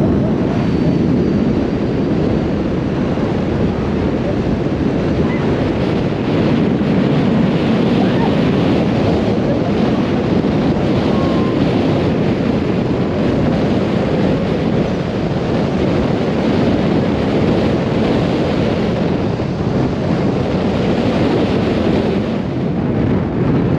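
Steady wind buffeting the microphone on the open deck of a moving tour boat, over the rush of bay water.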